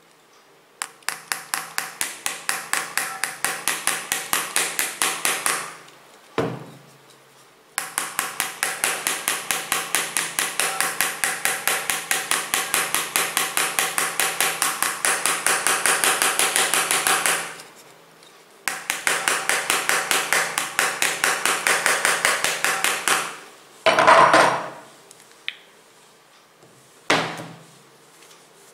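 A steel hammer head tapping the HTC Wildfire X's Gorilla Glass screen in quick, evenly spaced blows, in three long runs with short breaks between. Near the end come a couple of louder handling sounds.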